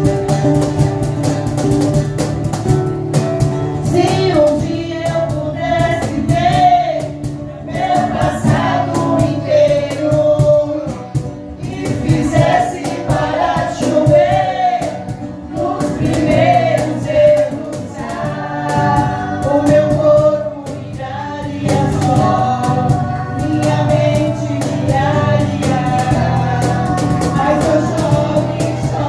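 Background music: a song with singing over a steady instrumental accompaniment.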